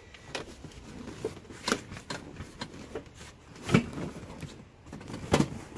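Rustling with scattered clicks and knocks as a car's leather rear seat section is pulled and worked loose by hand. The loudest knock comes a little past the middle.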